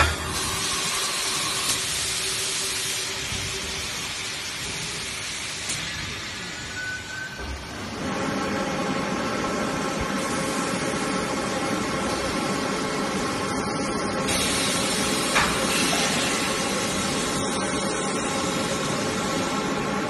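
Vacuum forming machine shaping a heated plastic sheet into a refrigerator liner: a steady hiss of air, joined about eight seconds in by a fuller, lower machine hum with steady tones.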